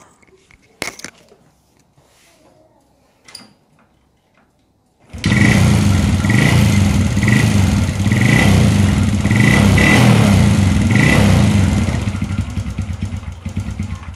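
Motorcycle engine kick-started. It catches abruptly about five seconds in, runs for about seven seconds, then dies away and stops near the end. It starts on the kick starter although the electric starter, lights and horn are dead from a blown fuse.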